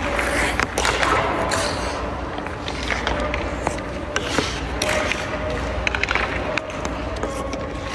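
Hockey skates scraping on rink ice, with several sharp clacks of sticks striking pucks during a shooting drill.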